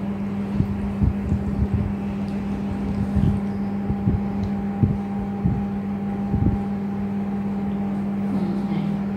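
A steady low mechanical hum with a fainter higher tone above it, and irregular dull thumps about a dozen times.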